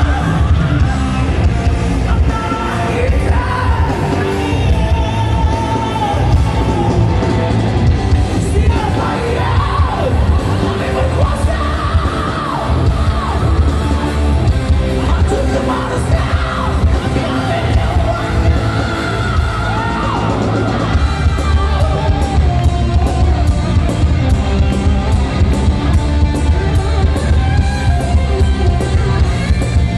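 Live rock band, with electric guitars, bass, drums and lead vocals, playing loud, with the crowd yelling and singing along. About two-thirds of the way through, a steady driving drum beat comes in.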